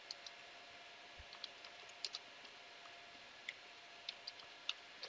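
Computer keyboard keys being typed: a scattered, irregular series of faint keystroke clicks.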